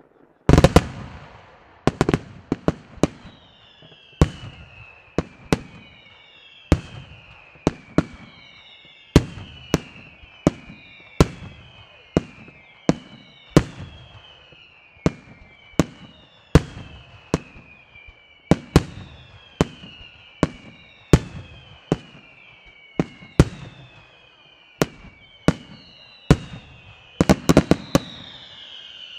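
Daytime aerial fireworks display: a rapid, irregular series of sharp bangs, about one a second, overlaid from about three seconds in with many overlapping whistles that each fall in pitch. A quick cluster of bangs and a louder whistle come near the end.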